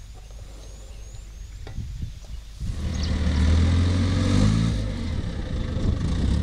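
Diesel engine of a wheel loader running, coming in loud about two and a half seconds in, with its pitch rising and falling as it revs.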